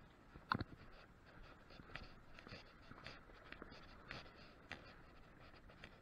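Spinning fishing reel being cranked by hand: small scratchy clicks about twice a second, the loudest about half a second in.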